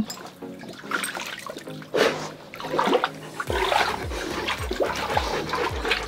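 Water sloshing and splashing in a shallow foldable dog pool as Rottweilers wade through it, in irregular swishes. From about halfway a run of low, evenly spaced thuds joins in.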